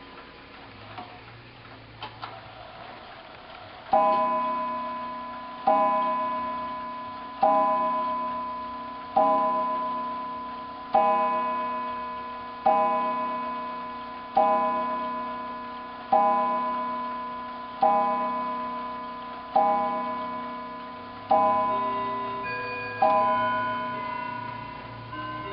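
Seth Thomas tambour mantel clock ticking, then a click and whir as the strike train releases, and the hammer striking the cathedral gong twelve times, about one stroke every 1.7 seconds, each stroke ringing and fading into the next. This is the test strike after the count-wheel striking was advanced to match the hands.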